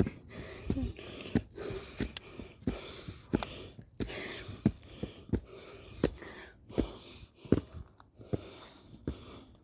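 A hiker breathing heavily on the climb, with steady footsteps landing about every two-thirds of a second.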